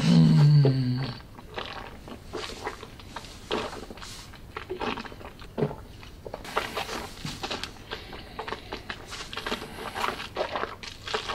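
Mouth sounds of a man holding a sip of whisky: a low hum from the throat for about the first second, then a run of small wet clicks and lip smacks as he works the whisky around his mouth.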